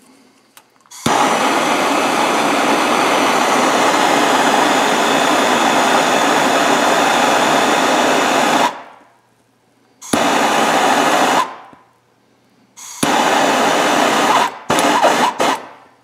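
Hose-fed gas hand torch flame hissing steadily while it heats a cable ring-terminal eyelet so the solder flows in. The hiss runs for about seven seconds, stops, then comes back in two shorter stretches, cutting on and off sharply.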